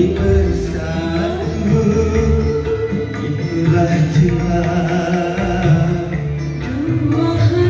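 A song with a singing voice and strong bass playing through a pair of Baretone MAX12HD active speakers with a 15-inch subwoofer, turned up to half volume.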